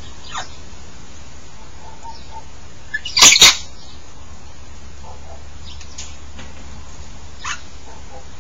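African grey parrots calling: one loud, harsh double squawk about three seconds in, and a few faint, short, downward-sliding whistles around it.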